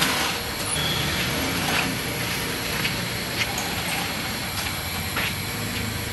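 Street traffic: a steady rumble of passing vehicles, with a few light clicks over it.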